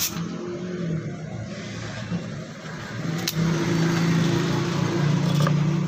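A steady low engine-like motor hum that swells louder about three seconds in, with a sharp click just after and another near the end.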